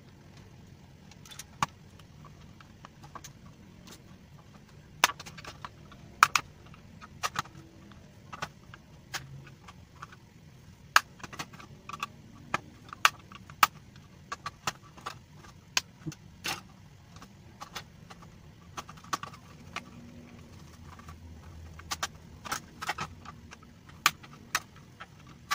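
Irregular sharp clicks and snaps of a Tenda F3 router's plastic case being pried open with a thin tool, its snap-fit clips popping loose one by one along the edges.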